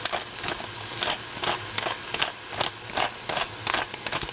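Kitchen utensil tapping and scraping in short, quick, uneven strokes, about three a second.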